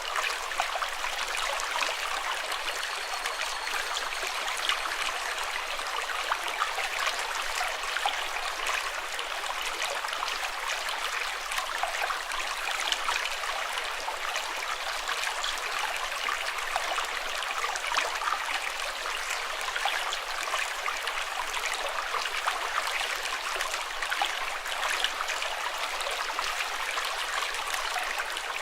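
Running water flowing steadily, with a constant splashing rush full of small quick drips and bubbles.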